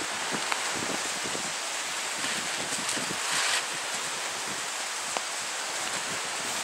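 Steady hiss of wind outdoors, with a few faint ticks.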